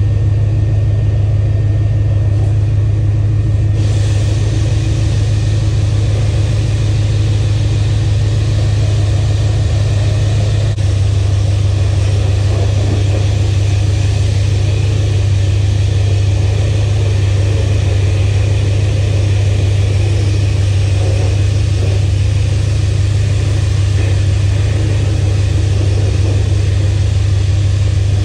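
Car-wash high-pressure wand spraying water onto a car, a steady hiss that starts about four seconds in, over a loud, steady low hum.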